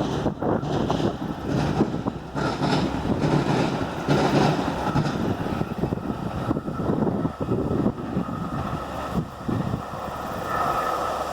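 Wind buffeting the microphone in strong, uneven gusts over the low rumble of a passing Metra commuter train.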